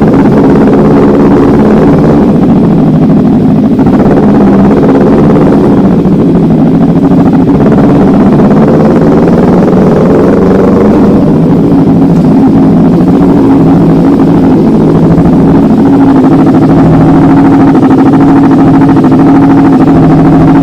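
Kawasaki Ninja 300's parallel-twin engine running steadily while the motorcycle is ridden at a constant speed, heard loud and close.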